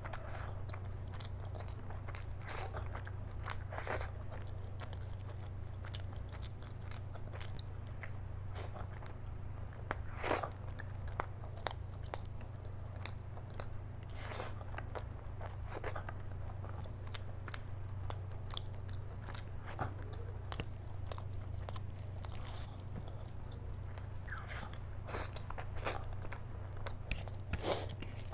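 Close-miked eating sounds of a person eating rice and curry by hand: wet chewing and mouth smacks with scattered short sharp clicks, over a steady low hum.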